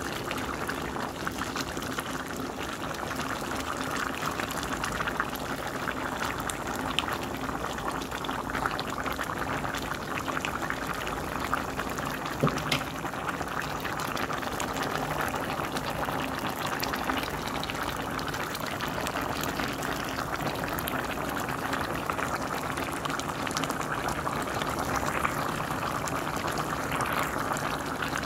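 A pot of green beans, potatoes and ham hock boiling steadily, the broth bubbling with many small pops, and one sharper click about halfway through.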